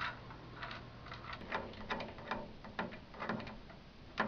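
Bolts and nuts being threaded by hand into an elliptical trainer's stabilizer tube: irregular small metal clicks and ticks, two or three a second, as the hardware is set loosely in place.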